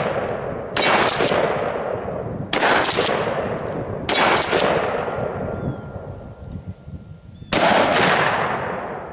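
Remington 870 short-barreled 12-gauge pump shotgun firing four shots of birdshot, the first three about one and a half to two seconds apart and the last after a longer pause. Each shot is followed by a long echo fading away.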